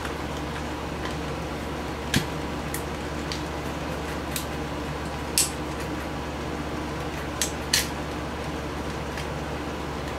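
Light clicks and taps, about seven scattered through the stretch, from hands handling wires and parts inside an opened vintage video camera's chassis, over a steady background hum.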